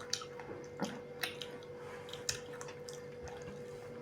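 Eating sounds: scattered small wet clicks and smacks of chewing a mouthful of rice and pork, over a steady faint hum.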